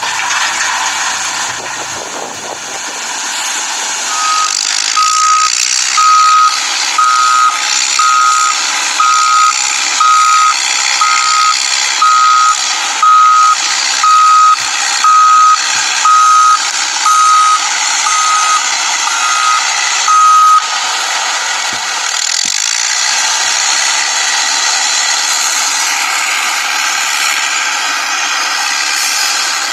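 Toy remote-control excavator: an electronic reversing-style beep repeating about one and a half times a second for some sixteen seconds, then stopping, over a steady whirring noise from the toy as it works.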